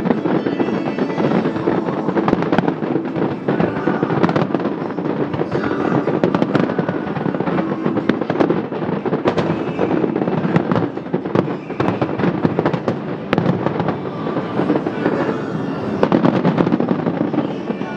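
Aerial fireworks display: many shells bursting and crackling in quick succession, sharp reports throughout, with music underneath.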